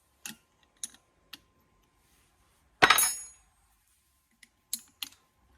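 Metal hand tools clinking against metal: a few light clicks, a loud ringing clank about three seconds in, then a few more clicks near the end.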